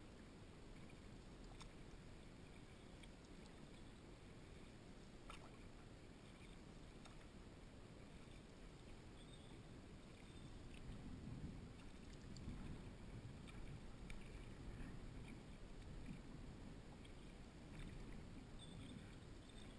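Faint sounds of a canoe being paddled on calm water, growing a little louder about halfway through, with a few light clicks.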